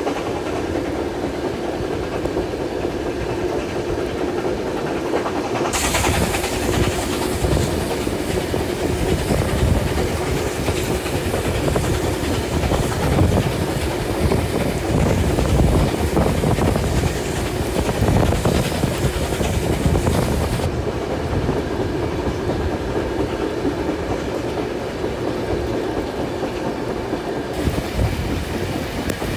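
Passenger carriage of a steam-hauled train running along the track, heard from an open window: steady rumble with wheels clacking over rail joints. A rushing hiss joins in about six seconds in and fades back out about two-thirds of the way through.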